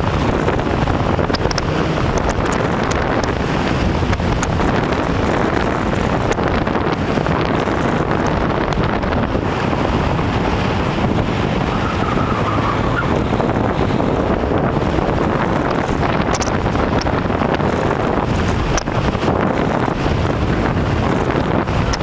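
Porsche 911 at speed on an autocross course: a steady wind rush over the microphone, with the car's engine and road noise under it.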